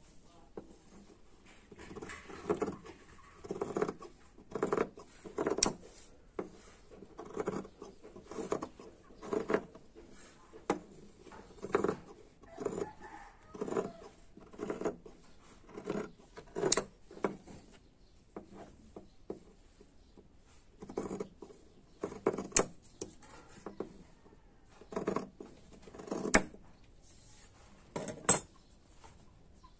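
Large steel fabric shears cutting black cloth in repeated snips, about one a second, each closing with a sharp metallic click, with a short pause about two-thirds of the way through.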